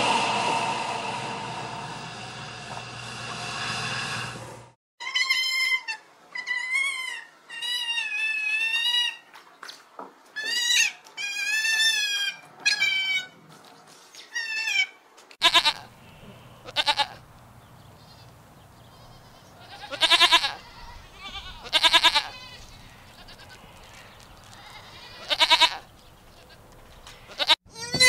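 Farm animals bleating: a run of wavering, quavering bleats for about ten seconds, then short separate bleats every few seconds. It opens with a dense steady drone that fades and cuts off about four and a half seconds in.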